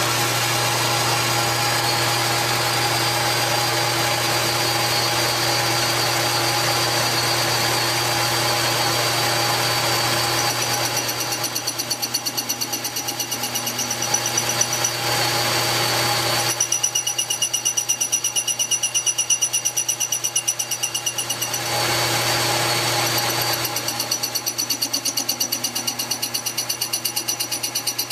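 Metal lathe running steadily, its motor hum and a high whine, while a cutting tool takes a light truing cut across the flange of a cast-iron live-steam locomotive wheel. The lower hum drops off for a few seconds about two-thirds of the way through, then comes back.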